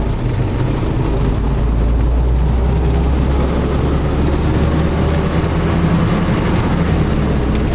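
Engine and road noise of a moving police vehicle, heard from inside its cab: a steady low drone.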